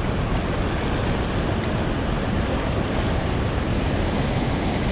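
Steady rushing of heavy water released through a dam, an even, unbroken noise.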